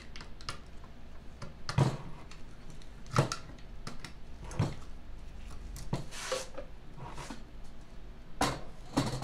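Sharp metal knocks, about six, roughly every second and a half, as a long tool is worked against the red chain case of a Snapper rear-engine rider.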